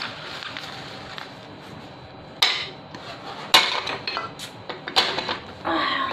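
Banknotes and the plastic sheet under them rustling as a pile of cash from a smashed piggy bank is handled, with three sharp clinks about a second apart starting a little over two seconds in and smaller ticks between.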